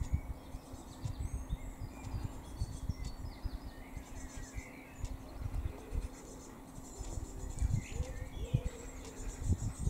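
Small birds chirping and twittering in short calls throughout, over irregular low thumps and rumble and a steady low hum.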